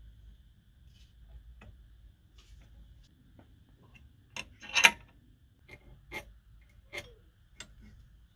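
Irregular sharp clicks and knocks of metal vise parts being handled and adjusted, about a dozen, with the loudest clack a little before five seconds in.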